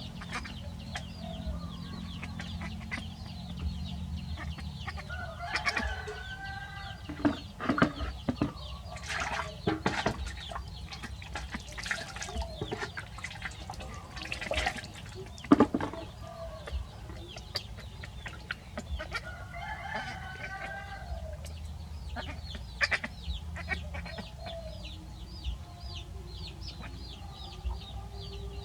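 Chickens clucking, with short high chirps repeating over and over throughout. A few sharp knocks come in the middle, the loudest about halfway through.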